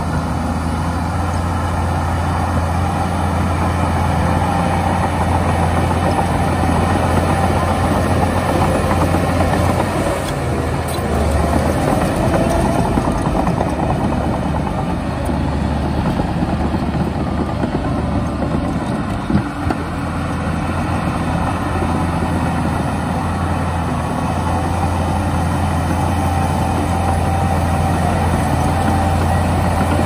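Shantui DH17 crawler bulldozer's diesel engine running steadily while the dozer pushes dirt, with a single short knock about two-thirds of the way through.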